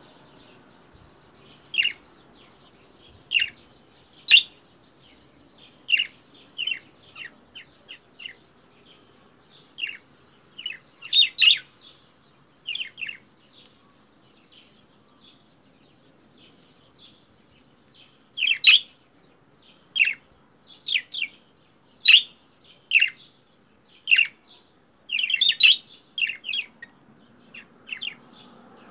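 Budgerigar giving dozens of short, sharp calls in irregular bursts, with a few seconds' lull about halfway through. The uploader takes the calls for the budgie imitating a crow's caw.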